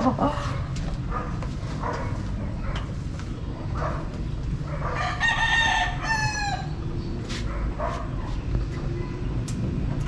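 A rooster crowing once, about five seconds in, in one long call of about two seconds, over a steady low background rumble.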